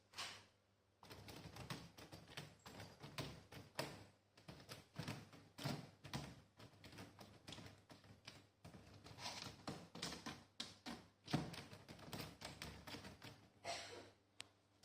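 A cat scrabbling at things: irregular quick taps, scratches and rustles, with one louder knock about eleven seconds in.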